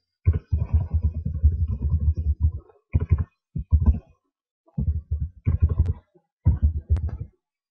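Typing on a computer keyboard: bursts of quick, muffled key thumps with short pauses between them, and a couple of sharper clicks near the end.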